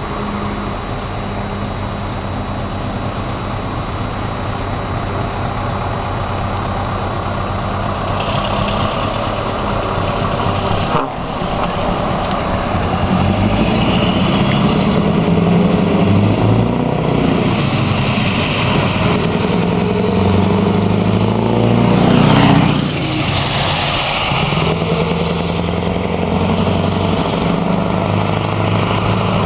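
Scania R500 truck's diesel engine approaching and growing steadily louder, with a brief drop about eleven seconds in. The truck passes about twenty-two seconds in with the engine note falling, then keeps running as it pulls away.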